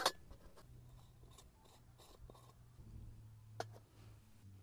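Faint handling of small camp-stove gear on a metal folding table: a sharp click at the start, another about three and a half seconds in, and light taps and rubbing in between.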